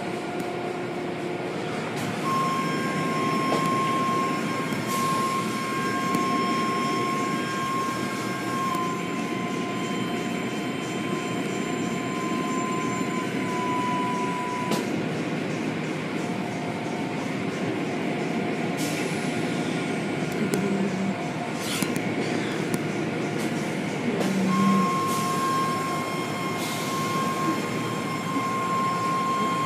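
Steady machinery noise with a high whine that drops out for a while in the middle and returns near the end, with scattered clicks.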